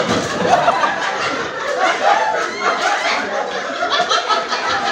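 A group of people laughing and calling out over one another.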